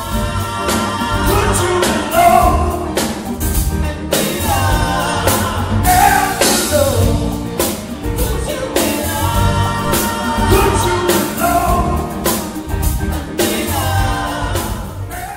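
Live rock band playing with a lead singer, drums hitting steadily under the vocals.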